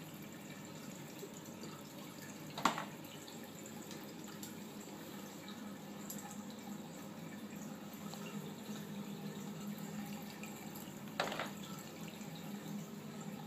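Water running steadily into a darkroom wash sink where photographic prints are washing, with two brief clicks, one about three seconds in and one about eleven seconds in.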